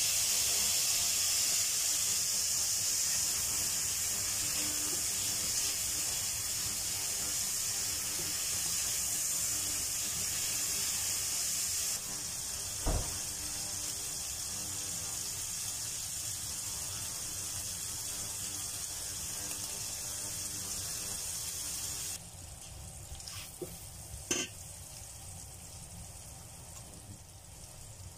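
Shrimp sizzling in a pan of bubbling liquid: a steady hiss that drops quieter in two steps. A sharp tap sounds about thirteen seconds in and another about twenty-four seconds in.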